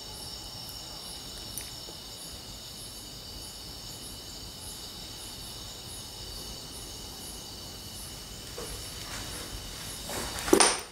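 Crickets singing steadily in high-pitched tones, with a fainter pulsing chirp about twice a second. A short loud noise cuts in near the end.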